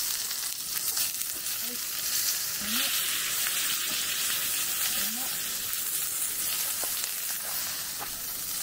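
Steak sizzling in a cast-iron pan: a steady frying hiss with a few small crackles.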